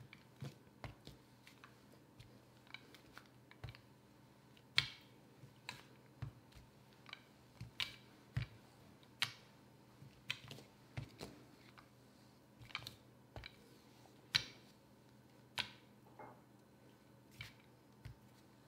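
Plastic rolling pin being rolled back and forth over dough on a plastic mat, giving faint, irregular light clicks and taps, about one or two a second.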